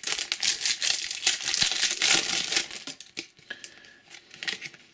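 Foil Match Attax trading-card pack being crinkled and torn open: a dense crackling for about three seconds, then a few fainter rustles and clicks.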